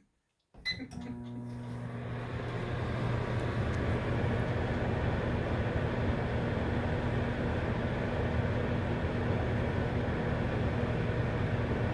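A microwave oven starting with a single keypad beep, then running with a steady electrical hum and fan noise that builds over the first couple of seconds and holds.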